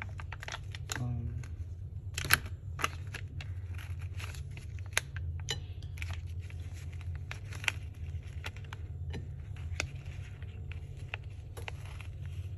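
Scattered small clicks and taps from objects being handled, the sharpest about two, five and eight seconds in, over a steady low hum.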